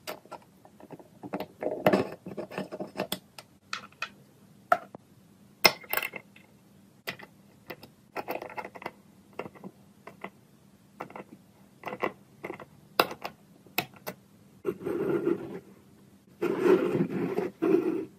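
Small metal parts of a model Stirling engine being handled and fitted together: scattered clicks and taps of metal on metal, with two longer stretches of scraping and rubbing near the end, as from a screwdriver turning a screw.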